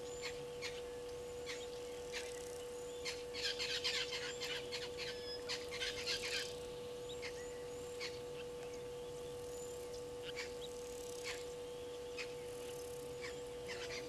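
Birds calling: short sharp chirps and little hooked whistles, with a busy run of them between about three and six and a half seconds in, over a steady electrical hum.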